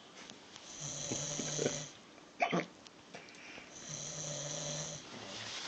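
A sleeping person snoring: two snores, each about a second long, about three seconds apart. A brief, louder sound comes between them, about two and a half seconds in.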